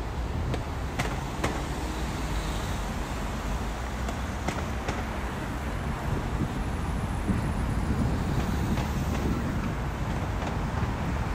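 City street traffic noise: a steady rumble of passing cars, with a few brief faint ticks.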